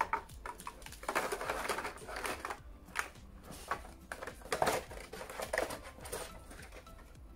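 Clear plastic packaging and a cardboard box handled by hand: irregular crinkling and rustling, broken by scattered clicks and knocks.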